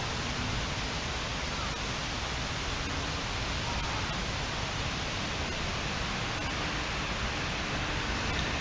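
Steady outdoor background noise: an even hiss with a low rumble underneath, no distinct events.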